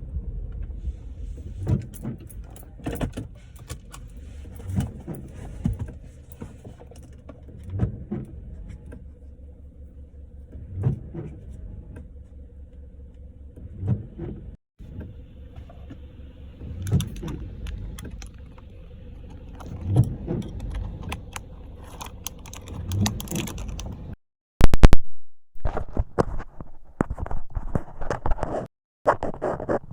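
Car cabin noise picked up by a headset microphone: a steady low engine and road rumble, with windshield wipers knocking in regular pairs about every three seconds. Late on, the audio drops out and gives a loud crackle as the microphone is unplugged and swapped.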